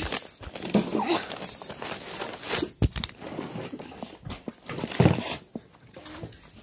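Irregular rustling and crinkling with scattered knocks, fading toward the end.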